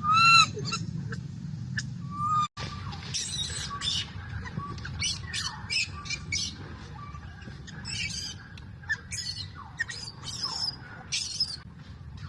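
Baby macaque crying: arched, whining calls in the first half-second, then after a brief break about two and a half seconds in, a string of short shrill squeaks and squeals.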